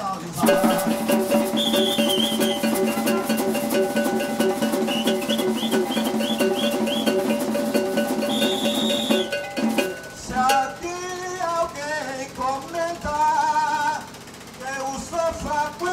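Maracatu rural (baque solto) band playing a fast, dense percussion rhythm under held horn notes, cutting off sharply about nine seconds in. A man then sings a verse into the microphone.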